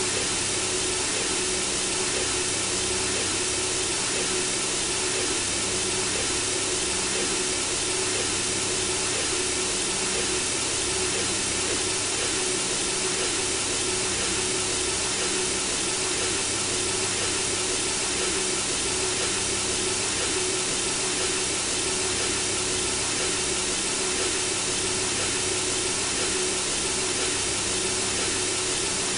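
Synthesizer-generated white noise: a steady, unchanging hiss with a faint steady tone running through it, meant to mimic the sound of blood flowing in the womb.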